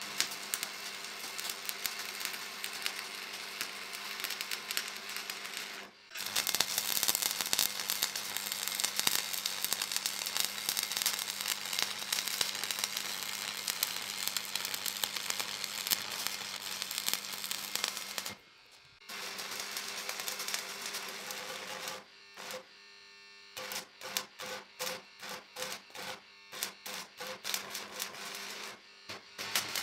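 Electric arc welding on a steel square-tube frame: the steady crackling sizzle of long weld beads, stopping briefly a few times. Over the last few seconds it breaks into a quick run of short bursts, one short weld after another.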